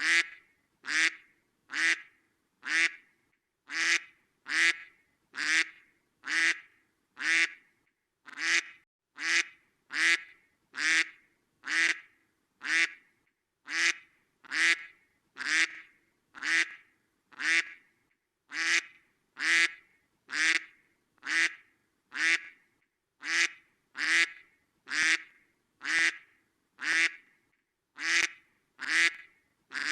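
Duck quacking over and over: short quacks evenly spaced, a little more than one a second, each alike in loudness.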